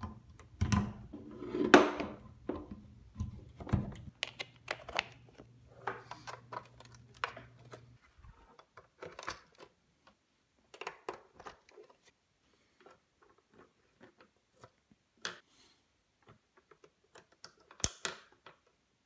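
Plugs and cables being connected by hand: a power plug pushed into a wall outlet, then connectors plugged into the back of a Commodore 64, giving scattered clicks, knocks and scrapes. A low hum sits under the first eight seconds, and one sharp click comes near the end.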